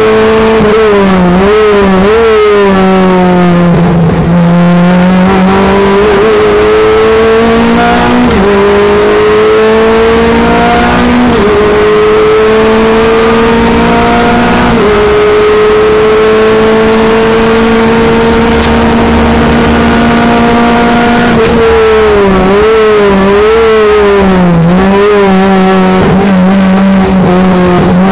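Renault Clio Mk3 Cup race car's four-cylinder engine, heard from on board and pulling hard down a straight. The pitch climbs and drops sharply three times a few seconds apart as it is shifted up. Near the end the note wavers and falls as the car brakes and shifts down for a corner.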